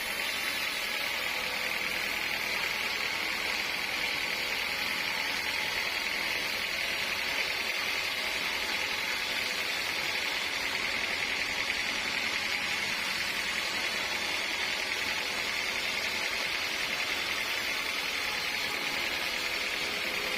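Sawmill saw running steadily through teak wood, an even rushing noise with a steady high whine.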